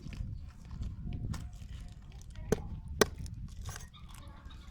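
Two sharp knocks about half a second apart, a little past the middle, over a low rumbling background.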